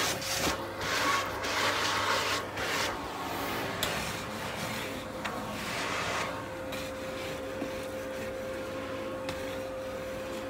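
Converse Chuck Taylor sneakers shuffling and scuffing on artificial-turf carpet, with swells of rubbing noise over the first few seconds and lighter scrapes after. A faint steady hum runs under it.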